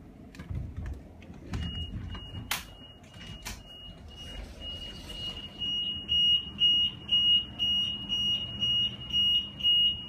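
Car alarm set off by the shaking of an earthquake: a high steady tone starts faintly about a second and a half in, then turns into loud pulsing beeps, about two a second, from about six seconds in. Scattered clicks and knocks come in the first few seconds.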